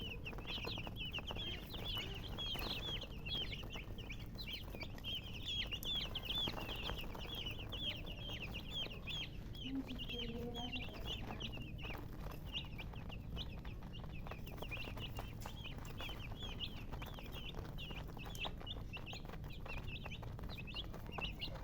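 A group of baby chicks peeping continuously: many short, high chirps overlapping, several a second.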